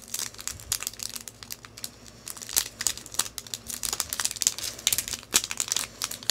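Small clear plastic sticker wrapper crinkled and torn open by hand: a dense, uneven run of sharp crackles.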